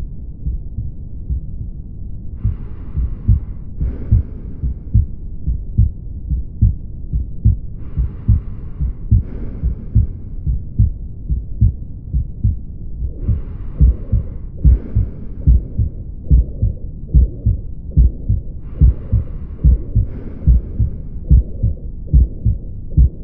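Heart sounds of a patient with mitral regurgitation heard through a stethoscope: regular low heartbeats with a blowing holosystolic murmur between them. The murmur grows louder from about halfway through.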